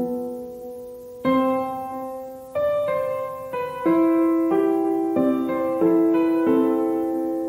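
Slow, gentle piano music: notes and chords struck about every second and a bit, each ringing and fading before the next.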